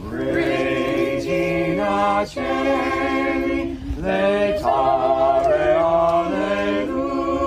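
A group of voices singing a hymn together in long held notes, with short pauses between phrases.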